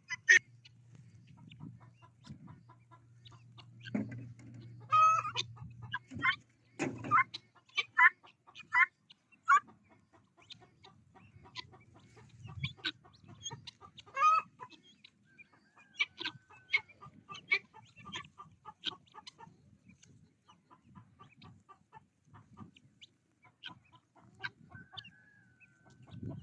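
A flock of poultry, a rooster with guinea fowl, calling throughout: many short, repeated clucks and chattering calls, with a couple of longer, steady-pitched calls.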